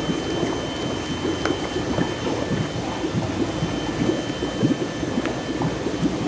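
Dense, continuous small splashing and bubbling of water in a tank crowded with swarming young eels at feeding, with a faint steady high whine underneath.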